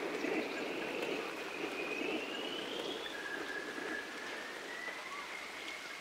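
Steady rain patter with faint scattered drop ticks. Over it runs a thin, high, sustained tone that glides slowly upward, breaks about halfway through, then holds steady a little lower.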